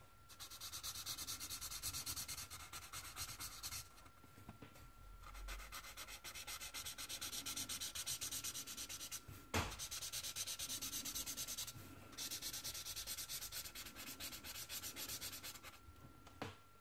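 Felt-tip marker scratching on paper in fast back-and-forth colouring strokes, in runs of a few seconds with short pauses between. A sharp click near the middle and another near the end.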